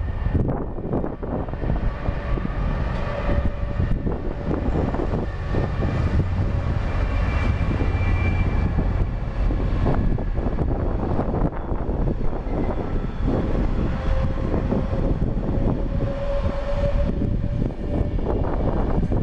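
A train running past close by: a steady heavy rumble and rail noise with a faint drawn-out whine.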